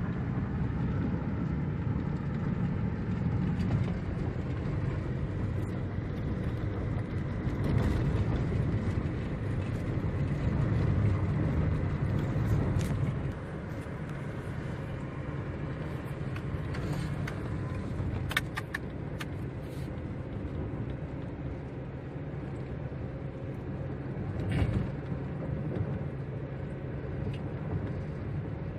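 Car driving, heard from inside the cabin: steady engine and road noise. The noise drops somewhat a little under halfway, and there are a few short clicks and a knock later on.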